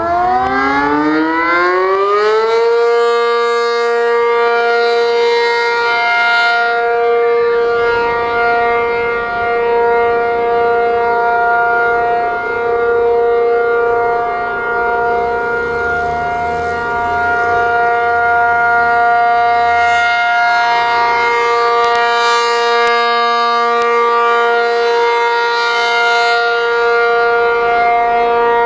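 ACA P-50 outdoor warning siren sounding a steady alert tone for a tornado warning test. It winds up in pitch over the first couple of seconds, then holds one steady high tone that swells and fades slowly.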